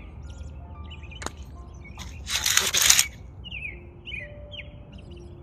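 Birds chirping in short falling calls, again and again, over soft background music. A loud rustling burst of under a second comes about two and a half seconds in, after a single click about a second in.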